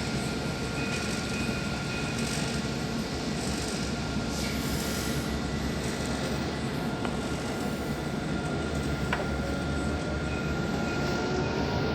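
Dubai Tram running, with a steady rumble and a constant high tone; near the end a whine rises in pitch and the sound grows louder.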